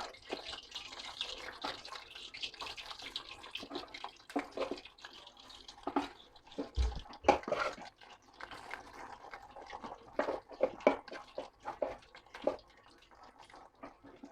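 Marinated chicken pieces frying in hot oil: a hiss that fades over the first seconds, then irregular sizzling crackles and pops, with one dull low thump about seven seconds in.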